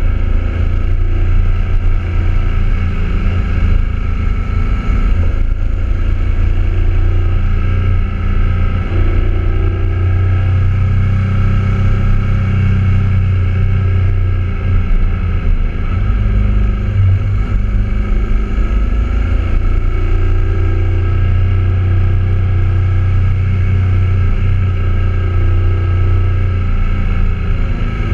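BMW motorcycle engine running as the bike rides through curves, heard from a camera mounted low on the bike, with a constant deep rumble and an engine note that shifts slightly with the throttle.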